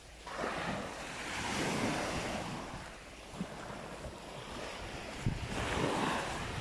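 Small sea waves breaking and washing up a sand beach in two surges, the first swelling just after the start and fading by about three seconds, the second near the end, with wind buffeting the microphone.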